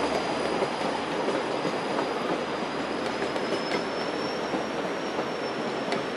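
Passenger train running along the rails with a steady rushing noise of wheels on track and a thin, high-pitched wheel squeal held throughout, rising slightly in pitch. Two faint rail clicks come near the middle and near the end.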